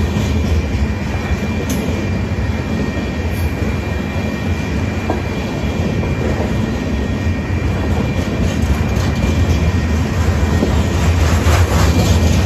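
Freight train of steel hopper cars rolling past at close range: a steady rumble of wheels on rail with clicking over the joints, getting a little louder near the end.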